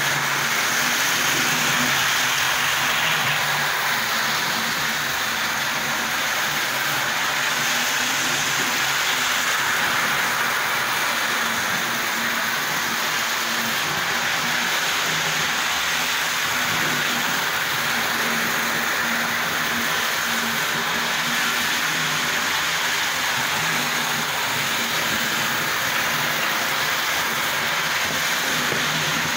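Model train running steadily round a layout: a continuous whirring of the locomotive's motor mixed with the noise of wheels running on the track.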